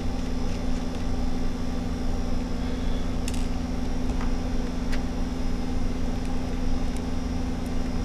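Steady low electrical hum, with a few faint light clicks of a small screwdriver working screws on a laptop motherboard.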